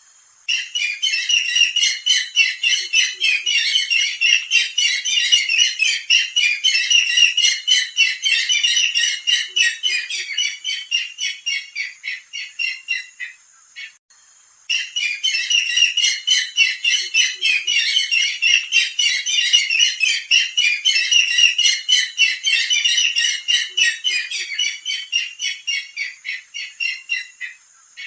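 Barred rail (sintar zebra) calls from a bird-lure recording: a loud, rapid chattering of many quick notes. It comes in two identical bouts of about 13 seconds, with a brief gap a little past halfway, as the recording loops.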